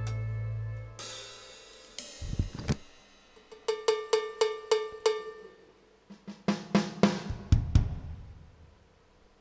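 A band's held final chord cut off about a second in, then a drum kit's closing flourish: two low drum hits, a run of five evenly spaced pitched drum strokes, then cymbal crashes with bass drum hits that ring away.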